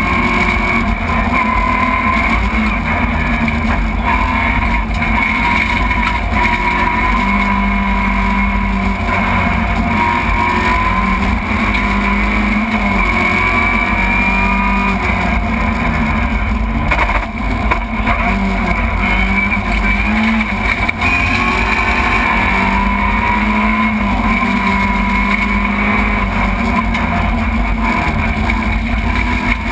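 Rally car's engine at full stage pace, heard inside the stripped, roll-caged cabin: revs climbing and dropping again and again as the driver works through the gears.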